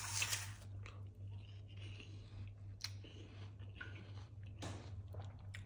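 A person biting into a crisp apple slice and chewing it: a crunch right at the bite, then faint chewing crunches and clicks.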